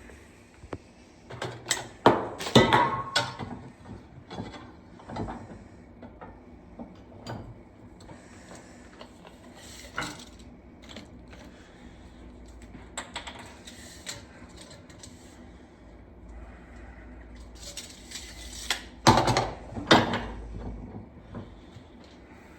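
Workshop handling sounds: scattered metallic clinks and knocks of metal pieces and tools being picked up and set down, with louder clusters of knocks about two seconds in and again near the end.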